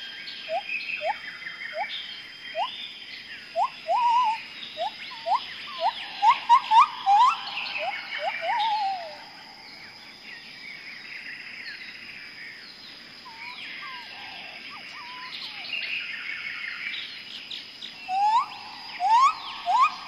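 Birds calling: a quick run of short, rising whistled notes with higher chirps over them, thinning out for several seconds in the middle, then a few rising whistles again near the end.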